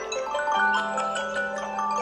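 Samsung phone alarm tone playing: a quick marimba-like melody of short mallet notes, with a held low note coming in about half a second in.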